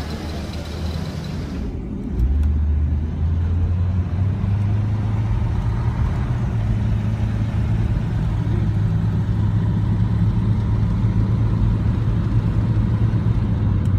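Cadillac V-16 engine, first briefly from outside the car, then from inside the cabin on the road. Inside it is a low, smooth drone that rises a little in pitch a couple of seconds in and then holds steady at cruise.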